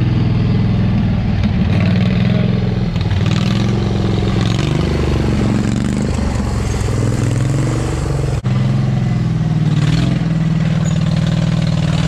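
Small engine of an off-road riding lawn mower revving up and down, working hard as the mower climbs a rocky creek-bed ledge. Its pitch rises and falls repeatedly, with a brief break about eight seconds in.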